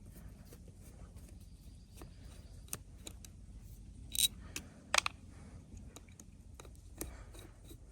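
Scattered small clicks and taps of hand tools and metal carburetor parts being handled, with a brief scrape about four seconds in.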